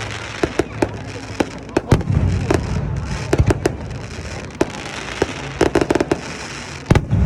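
Aerial fireworks going off: a steady crackle with many sharp, irregular bangs, and a quick cluster of reports about six seconds in.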